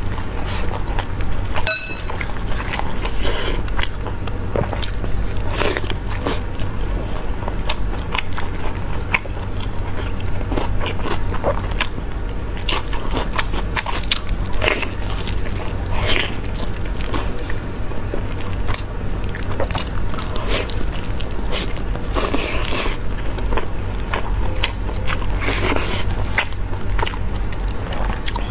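Close-miked eating sounds of a person biting and chewing fatty meat off a large bone, with many short wet clicks and smacks throughout.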